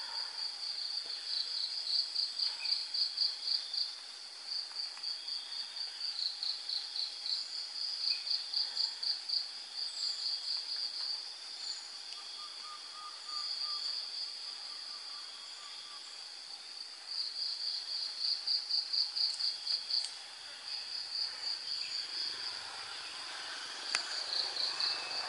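Insects chirping: a high, rapid pulsing trill that comes in runs of one to two seconds, separated by short pauses, over and over.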